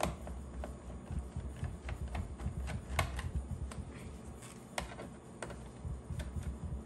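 Irregular light clicks and taps of a Phillips screwdriver working a screw out of the underside of a laptop, with hands handling the case.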